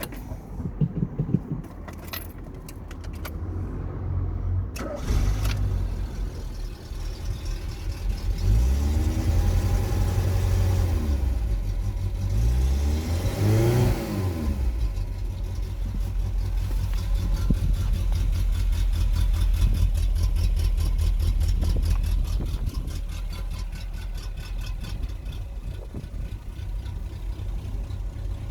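Petrol engine of a Talbot Express van running cold: a few clicks and rattles, then the engine picks up about five seconds in, is revved up and down twice, and settles to a steady idle. The owner's complaint is a misfire when cold.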